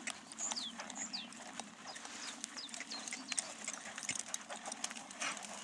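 A ridden horse's hooves on a sand arena surface, irregular soft hoofbeats as the horse walks and turns.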